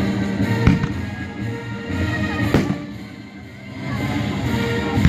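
Rock music playing, with two firework bangs about two seconds apart, the first under a second in.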